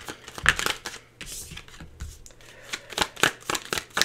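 A tarot deck being shuffled by hand: a rapid run of crisp card slaps and flicks, easing off into a softer rustle between about one and two seconds in, then picking up again.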